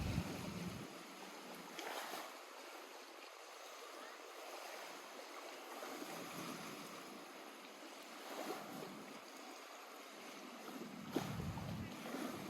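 Small waves lapping at the lake shore: a soft, steady wash of water with a few brief louder laps. Wind buffets the microphone in the first second.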